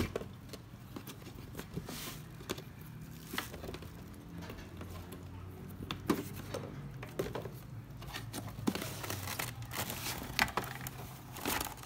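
Cardboard box and packing being handled and opened: scattered rustles, light scrapes and small knocks of cardboard, with some crinkling of packaging.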